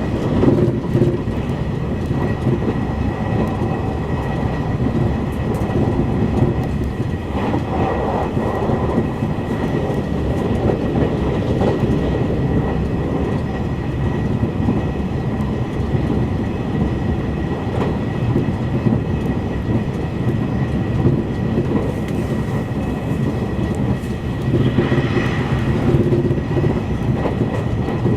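E351-series limited express electric train running at speed, heard from inside the passenger car: a steady rumble of wheels on rail with some rail clatter and a thin steady whine. The noise swells briefly twice, about eight seconds in and near the end.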